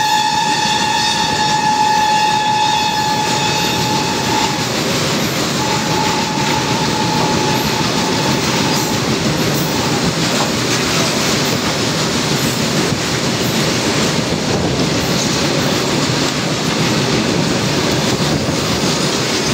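Loaded coal wagons of a goods train rumbling and clattering steadily past on the next track. A train horn holds one steady note until about four and a half seconds in, stops briefly, then sounds again for about three seconds.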